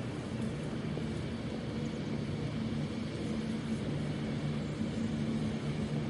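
A steady low mechanical rumble with a faint hum, like distant engine noise, with no bird calls standing out.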